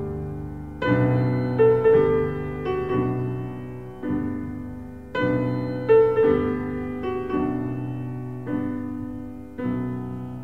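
Slow, gentle solo piano music: chords struck every second or so and left to fade.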